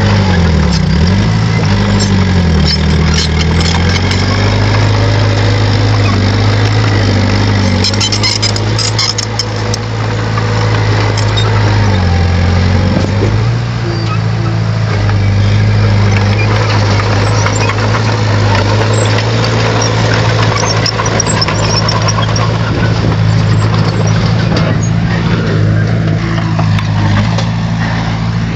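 Bulldozer's diesel engine running steadily under load, its pitch sagging and recovering as it pushes, in the first few seconds and again about twelve seconds in. Scattered clicks come through about eight seconds in.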